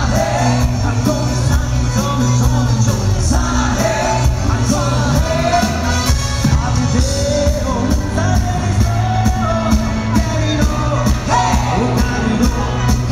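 Live band playing loud dance music, with a singer over a steady drum beat and bass.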